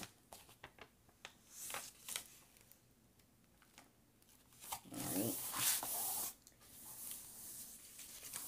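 Plastic cover film of a diamond-painting canvas rustling and crinkling as it is lifted off the sticky canvas and handled, with scattered small clicks and taps, and a louder stretch of rustling about five seconds in.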